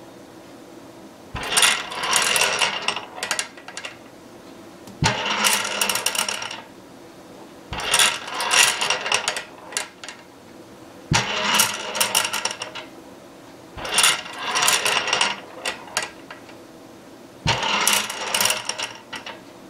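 Balls of a four-bit Rule 110 marble computer rolling through its machined aluminium tracks and clacking against the flippers and links. They come in six rattling bursts about three seconds apart, each starting with a sharp knock, and each burst is one computing step of the program.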